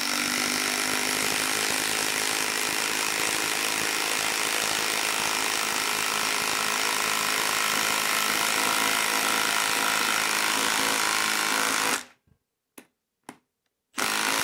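Milwaukee M18 FUEL 2960-20 impact wrench hammering steadily as it drives a 6-inch lag screw into wood. It cuts off about twelve seconds in, then gives two very brief taps and a last short burst near the end that finishes the drive.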